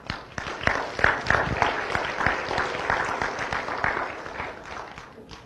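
Audience applauding. The clapping swells about a second in and tapers off near the end.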